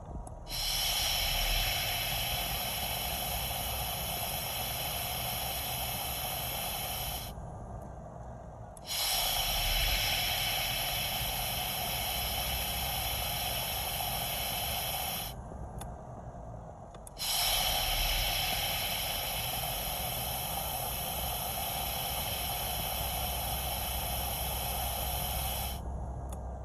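Leaking Chevy brake booster hissing each time the brake pedal is pushed: three long spells of loud, whistling hiss of about six to eight seconds each, starting suddenly and breaking off between presses, over a low steady hum. The hiss is the sign of a vacuum leak in the failed booster.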